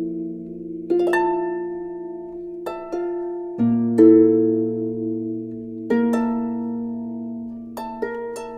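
Soft instrumental background music: slow chords, each starting sharply and left to ring and fade before the next.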